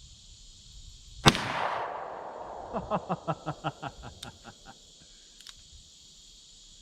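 A single shot from a Smith & Wesson .38 Special revolver about a second in, its report echoing away over about a second. It is followed by a quick run of about a dozen short pulses that fade out.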